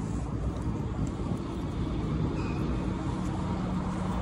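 Steady low rumble of city traffic and vehicles.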